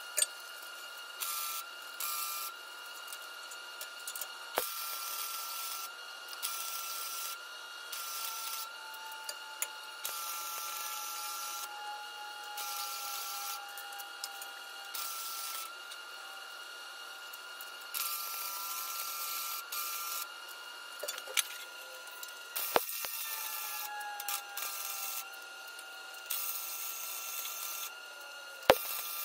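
Harbor Freight flux-core wire-feed welder arc crackling in a series of short bursts, each from about half a second to two seconds long, with short pauses between them, as the first pass of welds is laid. A steady faint high whine runs underneath, with a few sharp clicks.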